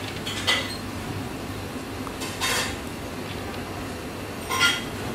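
Bamboo skewers and marinated squid being handled on an enamel tray: three short clicks and scrapes about two seconds apart, over a steady low hum.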